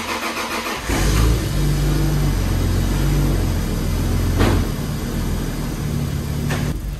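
Toyota Supra's turbocharged 2JZ inline-six cranking and catching about a second in, then running unsteadily, with two sharp cracks later on. It is a start on a freshly installed Megasquirt MS3 Pro engine computer.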